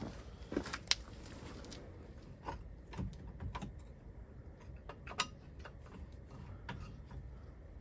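Irregular light clicks and taps of tools and metal parts being handled during brake work on a car, the sharpest about a second in and again about five seconds in.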